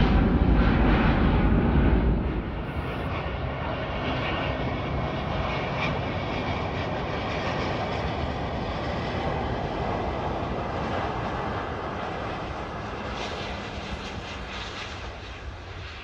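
Airbus A350 jet airliner's engines at takeoff thrust, loud for about the first two seconds. Then a sudden drop to the quieter, steady jet rush of an A350 on landing approach, fading a little near the end.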